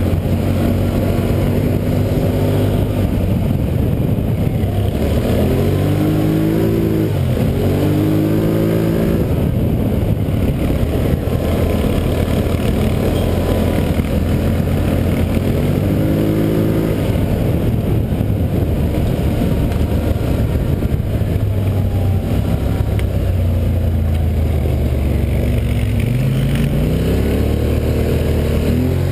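Polaris Sportsman 850 ATV's twin-cylinder engine running under way, heard from on board, its revs rising and falling several times. A steady rushing noise runs underneath.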